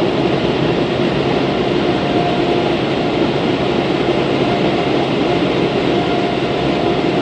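Touchless automatic car wash machinery running, a loud steady rushing noise heard from inside the car at the end of the wash cycle.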